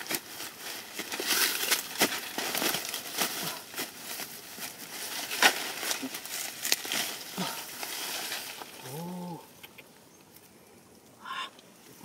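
Dry grass and stalks rustling and crackling as hands push through and pull at them, in irregular bursts. About nine seconds in there is a short low voice-like sound, and near the end a brief higher call.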